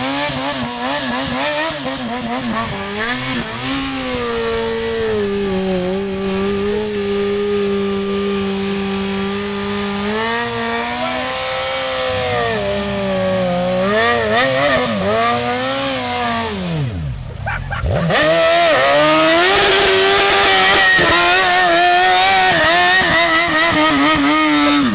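Honda CBR929RR sport bike's inline-four engine held at high revs through a burnout, the revs wavering and dipping repeatedly. About 17 seconds in, the revs fall away sharply, then climb back, and the engine runs louder with more hiss from the spinning rear tyre.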